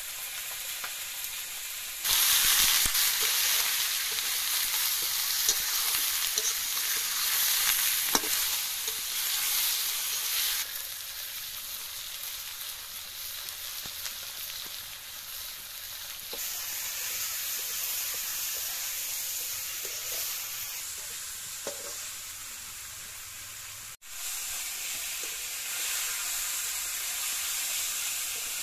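Snakehead fish pieces sizzling in hot oil in an iron kadai, stirred and scraped with a metal spatula. The sizzle jumps louder about two seconds in and eases off after about ten seconds.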